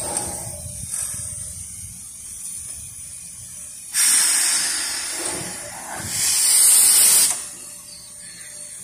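Steam hissing from an NGG16 Garratt steam locomotive, in two blasts. The first starts suddenly about four seconds in and fades. The second, louder one builds just after six seconds and cuts off sharply about a second later.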